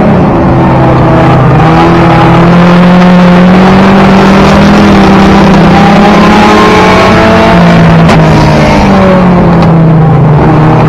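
In-car sound of a four-cylinder tuner race car's engine held at high revs on the oval. Its pitch climbs over the first few seconds and drops as the driver lifts a couple of seconds before the end, under a constant rush of road and wind noise.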